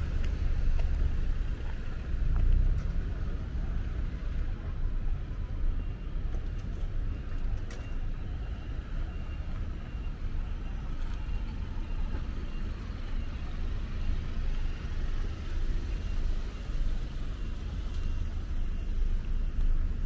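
Outdoor street ambience: a steady low rumble of road traffic, a little louder in the first few seconds.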